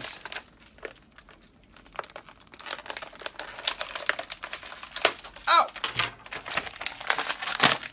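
Clear plastic packaging crinkling and crackling in irregular bursts as an action figure is worked out of its tray. There is a brief vocal sound about five and a half seconds in.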